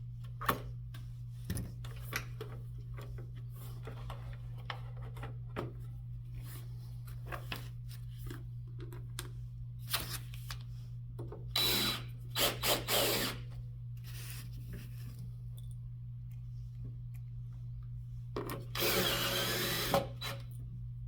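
Handheld power drill-driver running in two short bursts, one about halfway through and one near the end, with scattered clicks and knocks of handling small parts between them. A steady low hum runs underneath.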